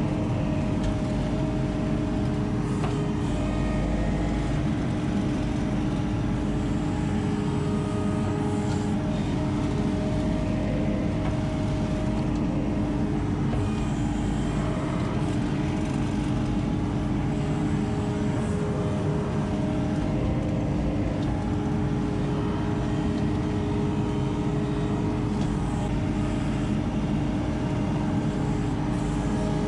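ASV RT-40 compact track loader's diesel engine running steadily while the machine drives and grades sand, heard from inside the open cab: a constant low rumble with several steady held tones and no break.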